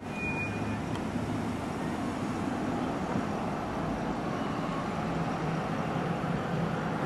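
Steady road traffic noise from passing vehicles, an even continuous hum, with a brief high tone right at the start.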